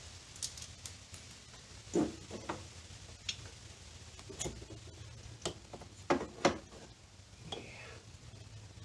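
Scattered metallic clicks and clinks of hand tools working on engine parts, a dozen or so irregular strikes over a low steady hum.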